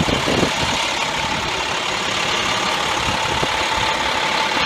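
Engine of a large FDNY high water rescue truck idling steadily, a continuous low rumble with a faint steady whine above it.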